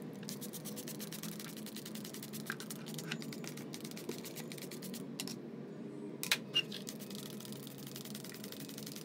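A small hand-held spray bottle squirted twice in quick succession about six seconds in, with a few fainter clicks earlier.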